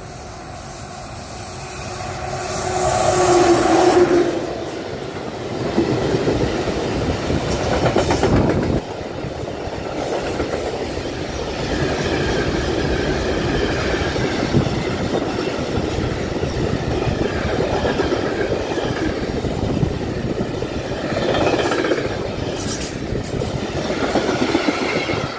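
Freight train passing close by. The locomotive goes by loudly a few seconds in, with a short steady tone as it draws level. A long string of container and tank wagons follows, rolling past with steady wheel rumble and clickety-clack over the rail joints.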